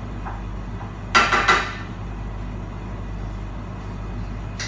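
Metal cookware clattering on a stovetop, three quick knocks about a second in, over a steady low kitchen hum.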